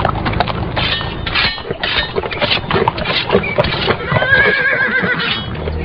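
Horse hooves clip-clopping, with a horse whinnying about four seconds in.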